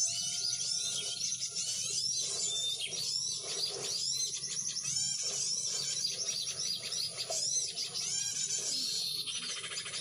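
Many small birds chirping and chattering over one another in quick, high calls, with a fast rattling trill near the end.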